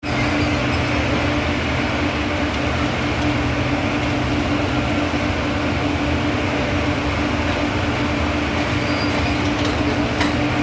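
A heavy engine running steadily with a constant drone, with a few faint clicks near the end.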